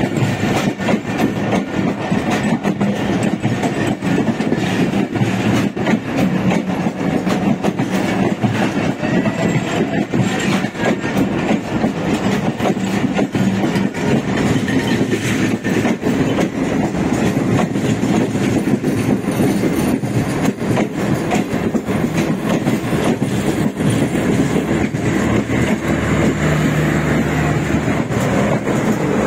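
Pakistan Express passenger coaches rolling past close alongside on the next track, a continuous clatter of wheels over rail joints and rattling carriages.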